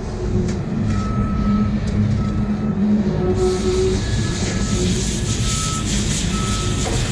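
Reversing alarm of a work vehicle beeping about once a second, with a steady low engine rumble under it.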